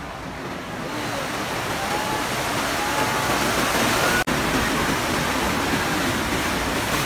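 Rushing, churning water of a splash-boat flume ride, heard from aboard the boat as it runs down and through the channel; the rush swells over the first couple of seconds and stays loud, with a momentary dropout about four seconds in.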